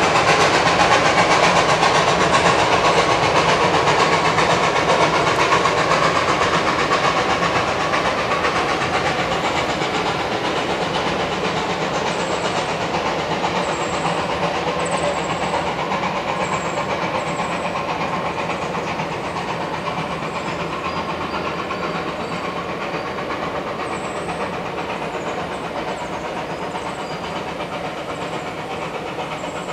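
Puffing Billy narrow-gauge steam train running away into the distance, its steady noise slowly fading. Short high chirps come in from about halfway.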